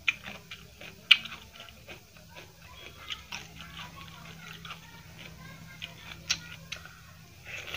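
Close-miked hand-eating sounds: fingers squishing and mixing rice with egg curry on the plate, with wet chewing and mouth clicks. Several sharp clicks stand out, the loudest about a second in.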